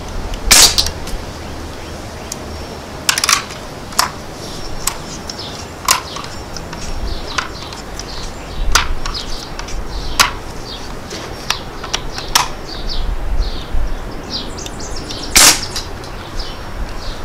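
Two shots from an Umarex NXG multi-pump air rifle firing BBs, about a second in and again near the end, with a series of lighter clicks and clacks between them. Birds chirp faintly and wind rumbles on the microphone.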